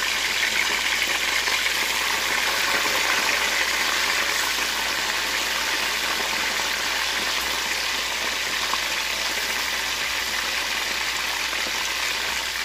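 Chicken wings and thighs deep-frying in hot oil in a wok: a steady sizzle and bubbling from raw pieces just added to the oil.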